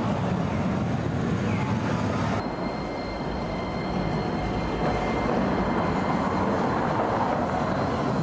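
Electric street trams rolling along street track, a steady rumbling run. About two and a half seconds in the sound changes suddenly to another tram passing, with a thin steady high tone over the rumble.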